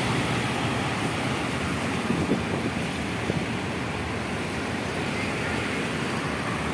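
Steady road traffic on a wet highway: scooters, motorcycles and cars passing with tyre noise on the wet surface, and wind on the microphone.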